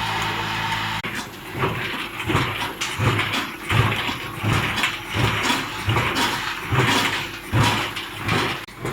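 Horizontal form-fill-seal pouch packaging machine running: a steady hum at first, then, after an abrupt change about a second in, a regular thumping work cycle of about three strokes every two seconds.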